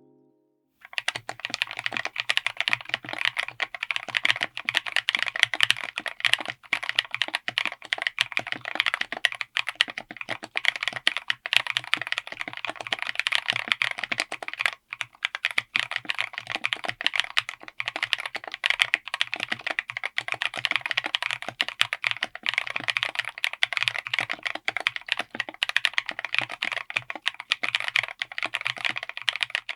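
Continuous fast typing on a mechanical keyboard with LEOBOG Ice Soul light tactile switches, heard as a dense run of keystroke clacks. It starts about a second in and breaks briefly about halfway.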